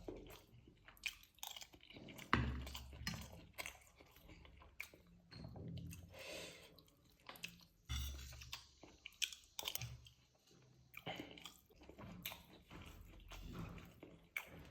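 A person biting and chewing food, with repeated crunches and crackles; heavier bites come about two and a half and eight seconds in.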